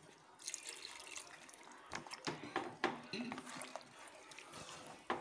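Ladle stirring mutton pieces through watery curry in a pressure cooker pot: liquid sloshing, with a few knocks of the ladle against the pot around the middle and near the end.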